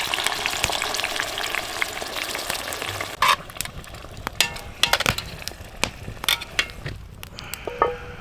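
Marinara sauce and meatballs sizzling in a hot pan. The sizzle fades after about three seconds. A loud clank follows, then scattered clinks and knocks.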